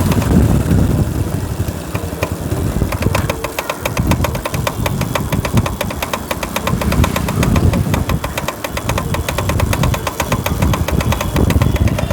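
Bajaj Discover motorcycle running, with a fast, even 'katar katar' clatter from the rear wheel over the engine sound: the sign of loose bearing bores in the wheel hub.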